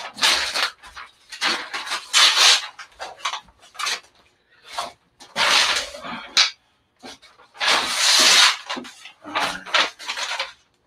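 Sublimation transfer paper and heat tape being handled and pressed down by hand: irregular noisy bursts, several about a second long, with short gaps between them.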